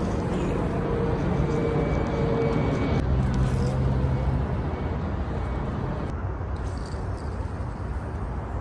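Steady outdoor background noise, strongest in the low end, with a faint steady hum in the first half and no distinct events.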